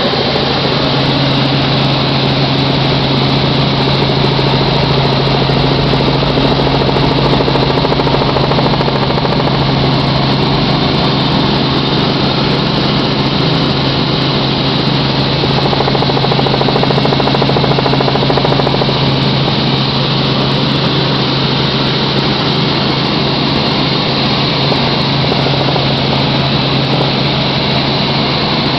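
Helicopter in flight: a steady drone of rotor and engine with a strong low hum throughout.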